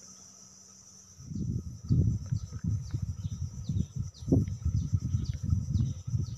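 A bird repeats short, falling chirps, about two or three a second, over an insect buzz that fades after the first second. From about a second in, a loud, uneven low rumble on the microphone covers everything else.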